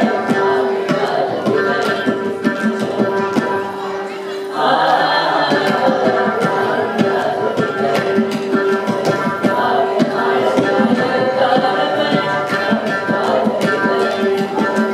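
A small group of voices singing a Carnatic song in unison over a steady drone, with hand-drum accompaniment. The singing grows fuller and louder about four and a half seconds in.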